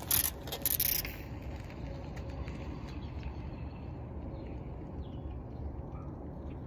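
A brief loud rush of noise in the first second as a bicycle passes close to the microphone. Then a steady low outdoor rumble with a few faint bird chirps.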